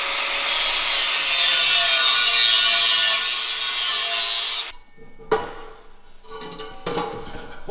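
Angle grinder with a cut-off disc cutting through a steel car exhaust pipe: a steady, loud, high-pitched grinding screech. It cuts off suddenly about four and a half seconds in, leaving a few light metallic knocks and clatters.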